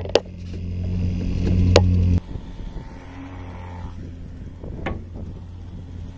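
Outboard motor on a small fishing boat running steadily at trolling speed, a low even hum. The hum drops sharply to a faint level about two seconds in. A few sharp knocks stand out, one near the start, one just before the drop and one later on.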